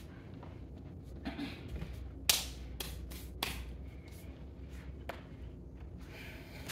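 A few sharp clicks and taps, a little past two seconds in and again near three, three and a half and five seconds, over a low steady hum.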